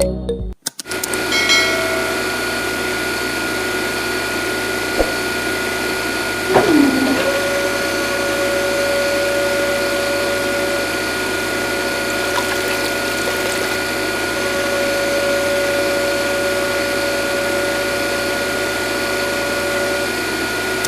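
A small electric motor running steadily with a whine, with a brief downward sweep in pitch about six and a half seconds in.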